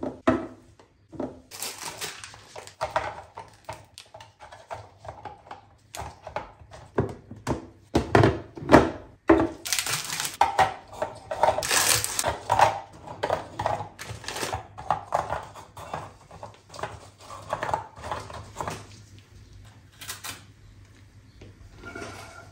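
Handling clear plastic storage boxes and biscuit packets on a stone counter: a string of light clicks and knocks from boxes and lids being set down, with a plastic biscuit wrapper crinkling about halfway through as biscuits are tipped into a box.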